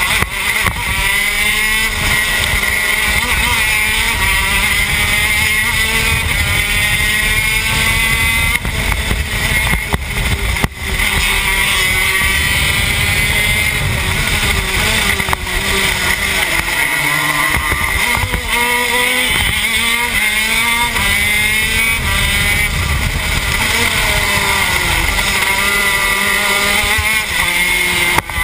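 TM K9c 125cc two-stroke shifter kart engine at racing speed, revving up and down over and over as it is driven through the gears and corners.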